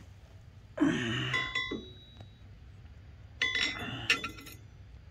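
Steel support brackets being handled and knocked together, ringing briefly with a clear metallic tone, in two bouts.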